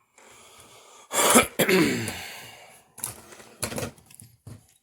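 A man clears his throat with a rough cough about a second in, trailing off in a falling voiced sound, followed by a few short clicks.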